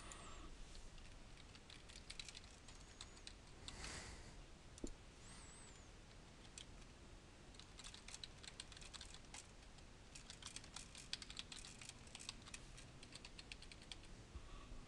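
Faint typing on a computer keyboard: runs of quick key clicks, sparse at first and busiest in the second half.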